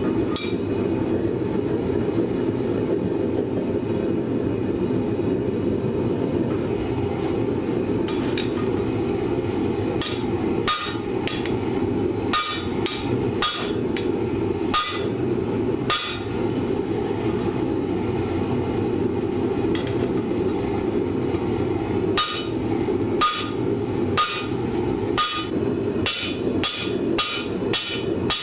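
Hand hammer striking hot steel bar on an anvil: a few scattered blows about a third of the way in, then after a pause a quicker run of strikes near the end. A steady low roar runs underneath throughout.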